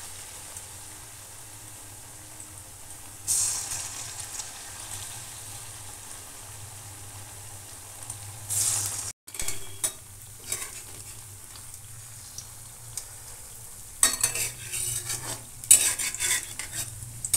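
Batter-coated date balls deep-frying in hot oil in a metal kadai: a steady sizzle that flares up louder twice as more balls are dropped in. Near the end a metal spoon scrapes and clinks against the pan as the balls are turned.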